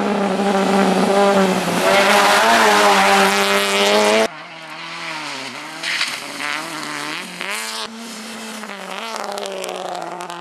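Volkswagen Gol rally car's engine running hard at high revs on a gravel stage, its pitch rising and dipping with the throttle. About four seconds in the sound drops suddenly to a quieter engine note that falls and rises again.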